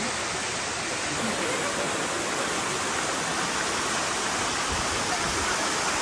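Waterfall crashing down a rock face, a steady rush of falling water.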